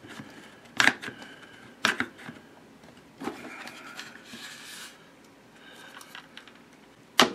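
Plastic parts and a one-handed bar clamp being handled: four short sharp clicks, spaced irregularly, with faint rubbing in between, as a PCV valve is lined up in the clamp to be pressed into its hose tube.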